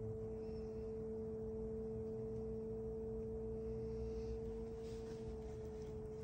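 Electric pottery wheel's motor whining at a steady pitch while the wheel spins with clay being shaped on it, the pitch sagging slightly about five seconds in.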